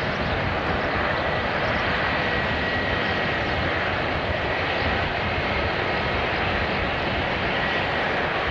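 Airliner engines running, a loud, steady rush of noise with a faint high whine on top.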